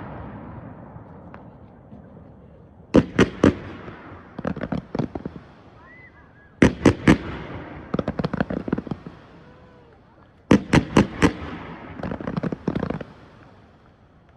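Fireworks display: three volleys of aerial shell bursts, each a cluster of sharp bangs followed by rapid crackling pops and an echoing tail, coming about every three to four seconds.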